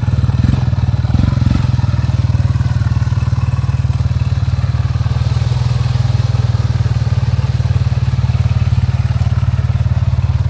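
ATV engine running at steady, moderate revs as the quad churns through a mud hole.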